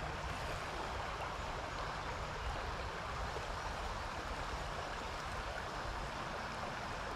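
Steady rush of a shallow creek running over rocks.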